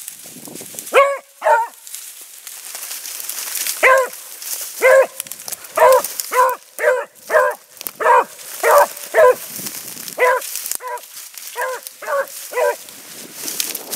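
A beagle giving tongue on a scent line: about sixteen short, clear barks, two near the start, then a steady run of roughly two a second after a pause of a couple of seconds.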